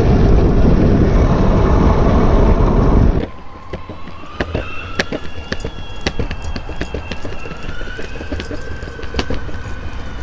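Heavy wind buffeting the microphone on a fast bike ride behind a running dog, cutting off suddenly about three seconds in. After that comes a quieter stretch of rapid, irregular light clicks with a faint steady high tone.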